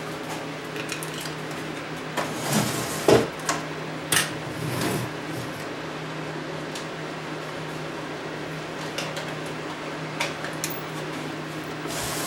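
Plastic back cover of a CRT television being fitted onto the set: a cluster of knocks and scrapes about two to five seconds in, over a steady low hum.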